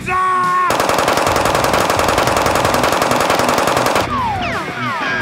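A sustained burst of rapid automatic gunfire, a dubbed machine-gun sound effect, lasting about three seconds and cutting off suddenly. It is preceded by a short rising pitched sound and followed by several quick falling pitched tones.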